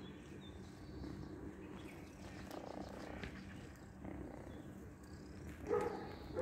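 Domestic cat purring faintly up close, with one short louder sound a little before the end.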